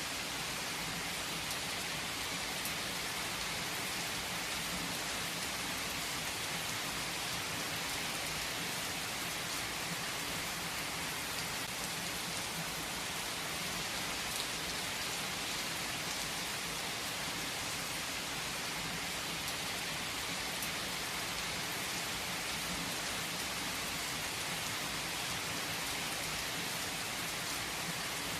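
Steady rain falling on a surface, an even hiss with faint drop ticks.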